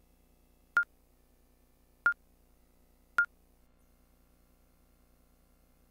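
Three short electronic beeps from an Arachnid Galaxy electronic dart machine, each one clean tone, about a second apart, as buttons are pressed to move through its menu and set up a 501 game. A faint low hum lies under them.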